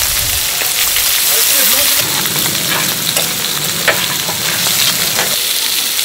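Pork intestines sizzling on a large flat iron griddle while metal tongs stir and turn them, with scattered short clicks and scrapes of the tongs against the plate.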